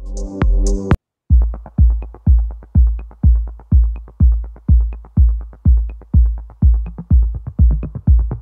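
Electronic background music: a short sting in the first second, then after a brief break a steady kick-drum beat at about two beats a second.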